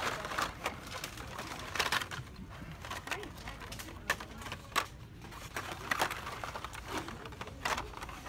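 Hot Wheels blister-pack cards being flipped through and pushed along metal store pegs: irregular clicks and clacks of plastic and cardboard knocking together.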